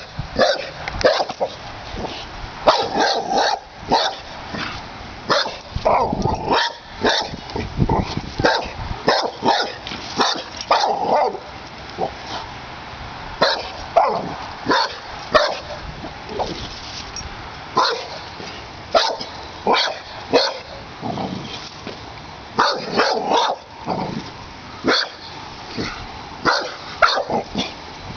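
Pit bull barking over and over at a snapping turtle, short sharp barks in quick runs with brief pauses: territorial barking at an intruder in its yard.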